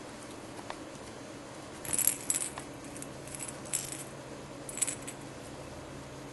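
Jingle-bell cat toy being batted about, jingling in a few short bursts, the loudest about two seconds in and the last near five seconds.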